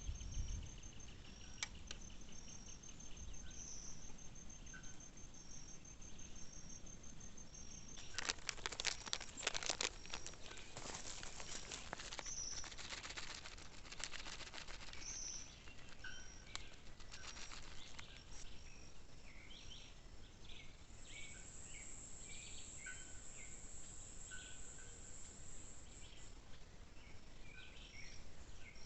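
Wild outdoor ambience of insects and small animal calls: a fast, evenly pulsed high chirping, a dense rattling burst of clicks that starts about a quarter of the way in and fades, a steady high whine for several seconds past the middle, and scattered short chirps throughout.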